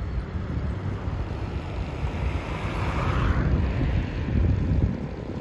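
Wind buffeting the microphone over a steady low engine rumble from a vehicle, with a broader rushing swell about halfway through.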